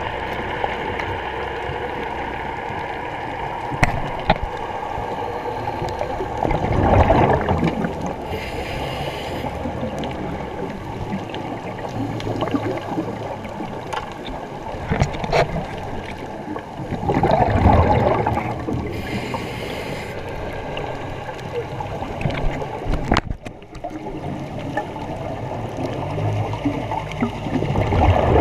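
A scuba diver breathing underwater through a regulator: three bubbling exhalations about ten seconds apart, the first two each followed by a brief hiss of inhalation, over a steady underwater rush.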